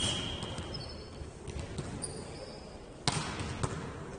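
Indoor ball game in a sports hall. A referee's whistle blast ends about a second in, and short high shoe squeaks follow. Two sharp ball strikes come about three seconds in, with the hall echoing.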